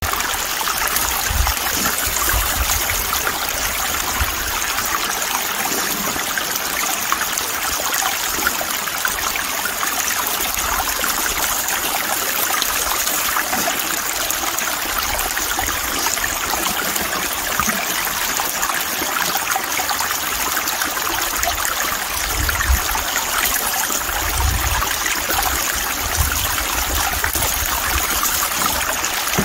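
Water rushing steadily through a sluice box and churning over its riffles. The flow is so turbulent that the prospector believes it is blowing the fine gold right out the end. A few low bumps come through, most of them about two-thirds of the way through.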